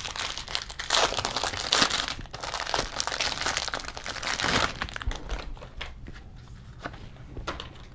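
Plastic wrapper of a 60-card trading-card pack crinkling and tearing as it is opened. About five seconds in it gives way to fainter, scattered ticks of handling.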